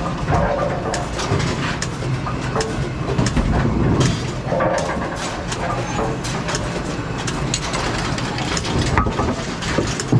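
Brunswick bowling pinsetter running through its cycle: a steady motor hum under repeated clanks and rattles of the machine's moving parts. It is not stopping where it should and is running past its 90-degree stop, a sign it needs adjustment.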